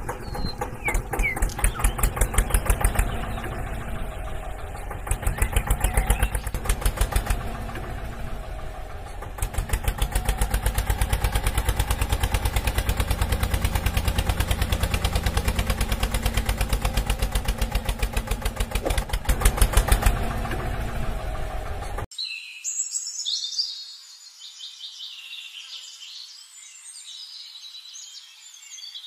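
A tractor engine chugging with a fast, even beat, swelling louder a few times. About three quarters of the way through it cuts off abruptly, leaving birds chirping.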